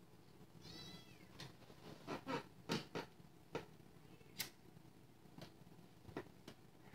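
Faint, scattered light clicks and taps of small lock parts and tools being handled on a bench, about ten in several seconds. A short high squeak or whine sounds about a second in.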